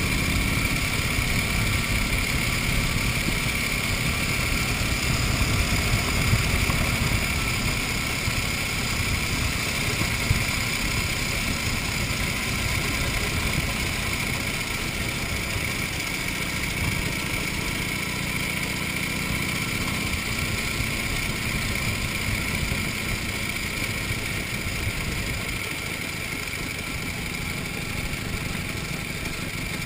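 1931 Indian 101 Scout's flathead V-twin engine running steadily as the motorcycle rides along the road, easing off gradually toward the end.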